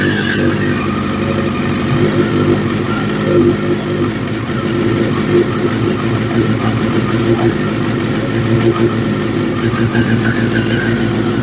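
2003 Suzuki Hayabusa's fuel-injected inline-four engine idling steadily on a freshly installed replacement fuel pump.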